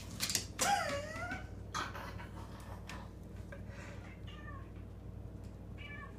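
Domestic cat meowing while playing with a toy. One long meow about a second in rises and then falls, followed by two shorter, fainter meows, the last near the end. A couple of light knocks come from the play on the floor.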